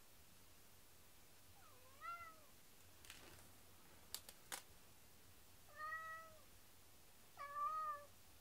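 Domestic cat meowing three times, each a short meow that rises then falls in pitch. A few sharp clicks come in quick succession midway between the meows.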